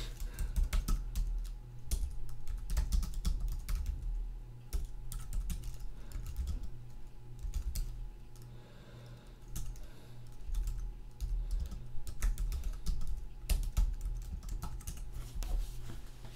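Typing on a computer keyboard: runs of quick keystroke clicks, thinning out for a couple of seconds about eight seconds in.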